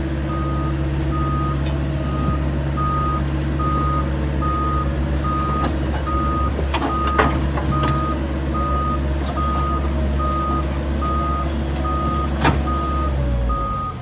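Bobcat mini excavator's diesel engine running steadily under load as it grips and lifts a large boulder, with a backup alarm beeping about twice a second throughout. There are sharp knocks about halfway through and again near the end, and the engine drops away just before the end.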